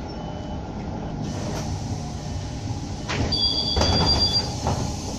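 Bus engine and road rumble heard from inside as the bus pulls up and stops, with a high two-tone brake squeal lasting about a second, around three seconds in.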